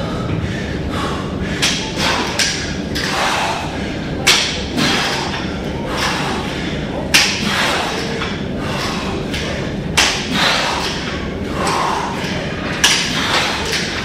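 Several sharp thuds a few seconds apart over a steady background noise.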